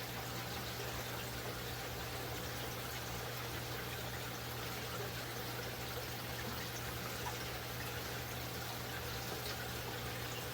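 Steady hiss with a low hum underneath, unchanging throughout, with no distinct knocks or clatter.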